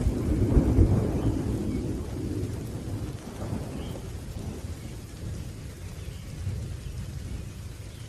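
Thunder rumbling over steady rain; the rumble is loudest about a second in and slowly fades away.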